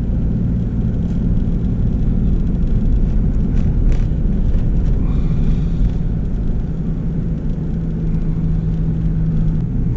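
Diesel car's engine and road noise heard from inside the cabin while driving, a steady low rumble. Near the end the engine note settles into a steady hum for a couple of seconds.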